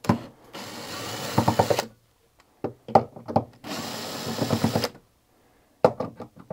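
Power drill running in two short bursts, each about one and a half to two seconds long, driving out a battery case's lid screws with a cut-down Allen key as the bit. A sharp click comes near the start and another shortly before the end.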